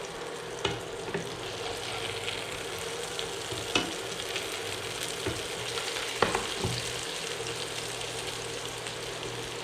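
Marinated prawns sizzling in coconut oil in a nonstick frying pan as a spatula turns them, with several sharp knocks and scrapes of the spatula against the pan, loudest about four and six seconds in. A steady hum runs underneath.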